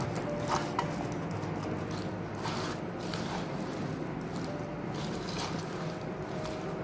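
Hands tossing and mixing raw potato sticks through a wet flour-and-water batter in a steel plate, the batter-coated potatoes moving against each other and the metal, over a faint steady hum.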